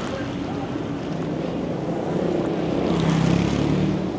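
Street traffic: engines of passing vehicles running over a steady hiss, one louder engine about three seconds in.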